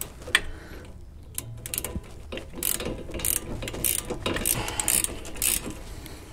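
Socket ratchet clicking in short, irregular runs of back-strokes as it tightens the nut on a sway bar end link stud.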